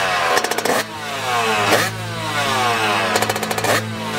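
Two-stroke motocross bike engine revved in three sharp blips, the pitch shooting up and then falling away slowly after each.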